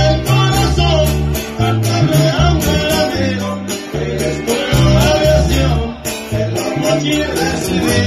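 A live band playing a corrido on guitars, with a heavy bass line, a steady beat and a singer's voice.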